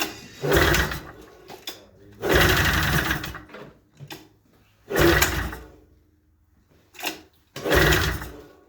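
Recoil starter of a 1989 Yamaha Exciter 570 snowmobile's two-stroke engine pulled four times, the engine turning over without firing, most likely while its compression is checked after it seized.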